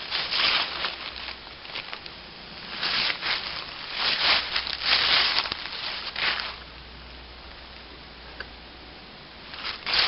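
Footsteps rustling through leaves in uneven bursts, then a few seconds of quiet with one small click.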